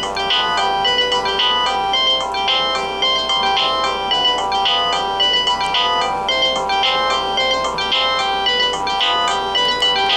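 Uniden D3280-2 DECT 6.0 cordless phone playing a ringtone: an electronic melody of several notes at once, its short phrase repeating about once a second.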